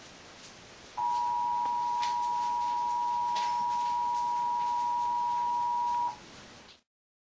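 A steady electronic beep, a single flat tone with two close pitches, starting about a second in and holding for about five seconds before it stops abruptly.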